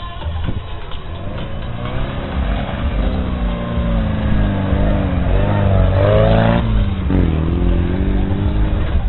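Lada Niva engine revving hard under load as the 4x4 climbs a dirt slope. The pitch rises for several seconds, drops sharply about six and a half seconds in, then rises again.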